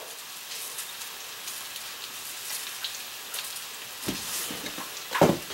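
Light, crackly patter of table salt being sprinkled from a canister onto raw turkey pieces in a plastic bowl, over a faint sizzle from the stove. A soft knock sounds near the end.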